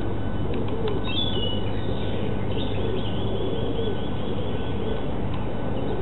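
Small songbirds singing: a short high descending phrase about a second in, then a fast run of repeated high notes from about two and a half to five seconds. Underneath is a steady low hum and background noise.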